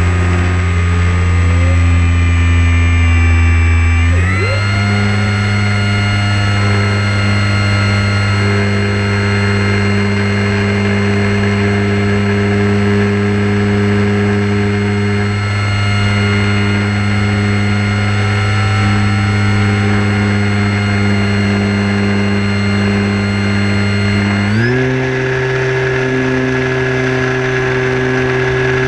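Motor and propeller of a radio-controlled Sport Cub model airplane heard from on board, a steady whining drone in flight. Its note shifts suddenly about four seconds in and again near the end as the throttle changes.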